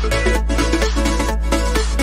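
Background electronic music with a steady bass line.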